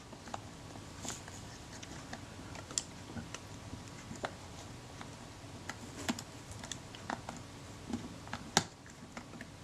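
Faint, irregular small metal clicks and light taps as a Kodak Retina IIa's film advance lever is fitted back onto the camera's top cover, with a few sharper clicks among them.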